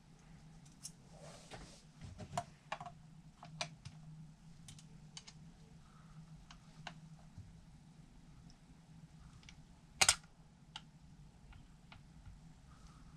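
Scattered light clicks and taps of small parts being handled and fitted while a 1:14 scale RC4WD car lift kit is assembled by hand, with one sharper click about ten seconds in, over a faint low hum.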